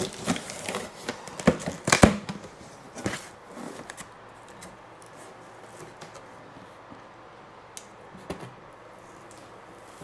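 A cardboard box being opened and handled: a run of sharp knocks, scrapes and rustles of cardboard and packing tape over the first few seconds, the loudest about two seconds in, then only faint rustling.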